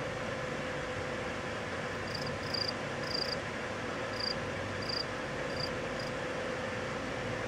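A cricket chirping: about seven short, high chirps at uneven intervals from about two seconds in, over a steady background hiss with a faint hum.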